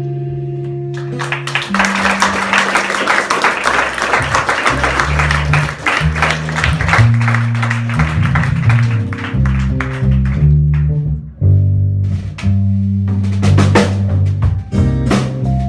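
Live rock band playing an instrumental passage with guitar, bass guitar and drum kit. A held chord gives way about a second in to a crash of cymbals that keeps washing over a moving bass line, with sharp drum hits near the end.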